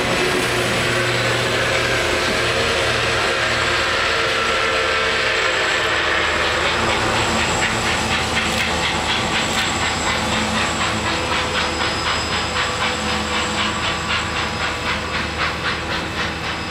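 Passenger train cars rolling past on the rails, the rushing wheel noise fading as the rear of the train moves away. From about halfway through, a grade-crossing bell rings in an even, regular beat.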